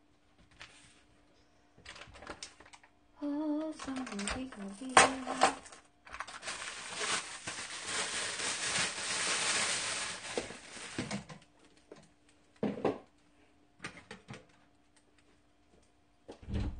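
Thin plastic bag crinkling and rustling as it is handled, with scattered clicks and knocks of things set down on the counter. A brief hummed voice comes about three seconds in.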